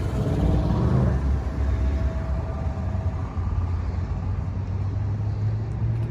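A car engine running nearby, a steady low hum that rises a little in pitch near the end.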